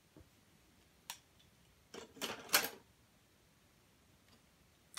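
Small plastic transforming robot toys being handled and set down: one sharp click about a second in, then a short clatter of clicks around two seconds in, and another click near the end.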